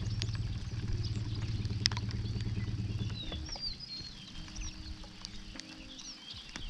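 A steady low hum that fades out about three seconds in, under birds chirping throughout, with scattered light ticks.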